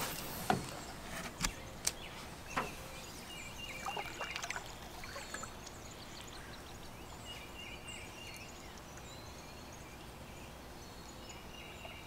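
Outdoor river ambience: a steady hiss of moving water, with a few sharp knocks in the first three seconds and faint high chirps scattered through the middle.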